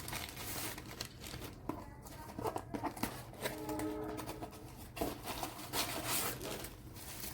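Packaging of a cosmetics item being handled and unwrapped: crinkling, rustling and tearing, with scattered clicks and taps.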